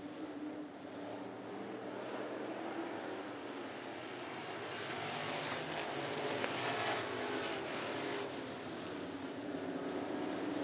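A pack of classic-class dirt-track race cars running at speed together, their engines blending into one steady drone. It grows louder about halfway through as the field comes past.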